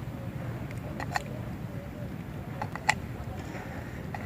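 A few light clicks and taps from small utensils and cookware of a miniature toy cooking set being handled: two about a second in and two near the end, over a steady low hum.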